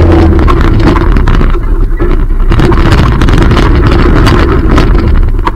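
Quad ATV engine running close to the microphone while riding, with frequent short knocks and rattles from the ride over rough ground.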